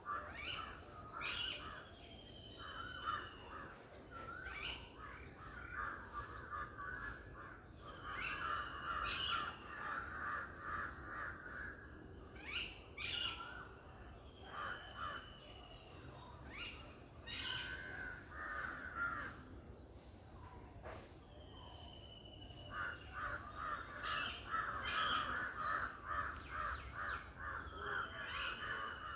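Birds calling: bursts of rapid chattering calls, and a short falling whistled note that comes back about every five seconds, over a steady high tone.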